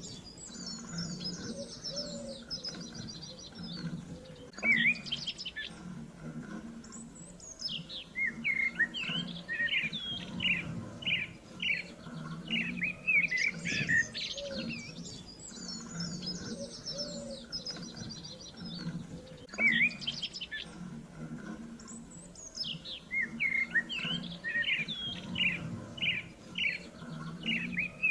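Songbirds chirping and trilling, with quick high trills and short chirps overlapping, over a low uneven sound underneath. The same passage of birdsong repeats about halfway through, as a loop.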